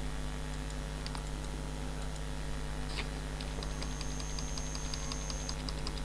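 Computer keyboard keys tapped in a quick, even run of light clicks from a little past halfway, as characters of code are deleted, after a couple of single clicks earlier. A steady electrical hum runs underneath.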